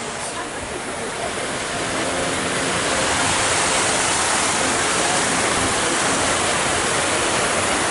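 Steady rushing noise, growing a little louder over the first three seconds and then holding even.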